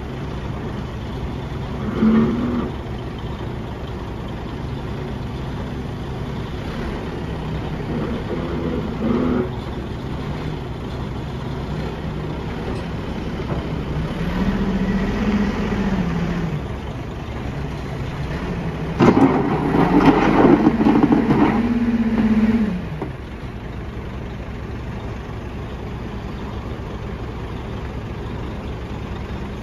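Heavy diesel engines of a backhoe loader and a dump truck running, one revving up under load four times, the longest and loudest surge about two-thirds of the way through. A few sharp knocks sound during that last surge.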